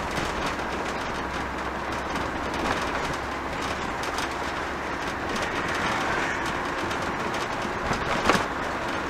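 Steady road and engine noise inside a moving motorhome's cab, with light rattles and a single knock about eight seconds in.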